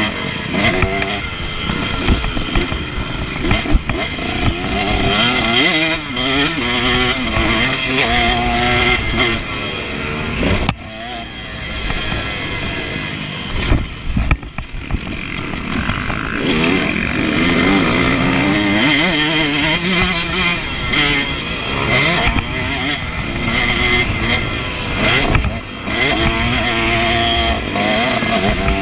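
Husqvarna TC125 two-stroke motocross bike engine heard from on the bike while riding, its pitch repeatedly rising and falling as the throttle is opened and closed. The engine drops off briefly about a third of the way in and again about halfway through before picking back up.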